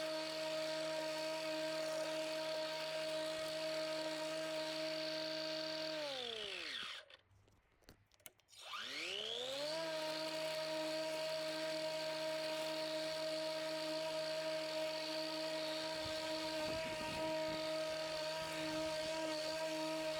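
Pellenc Rasion 2 Easy battery lawnmower's electric motor running with a steady whine. About six seconds in it winds down to a stop, then after a couple of seconds of quiet spins back up to the same whine.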